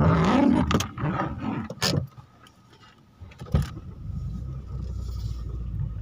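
Inside a car: a loud rush of noise at the start, a few sharp clicks or knocks, then from about four seconds in a steady low rumble of the engine and tyres as the car moves.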